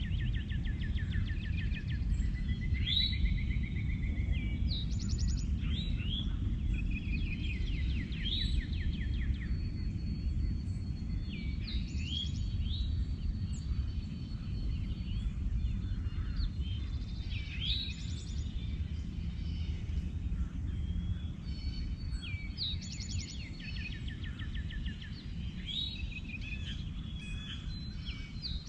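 Songbirds singing in short repeated phrases of trills and rising notes, coming back every few seconds, over a steady low rumble.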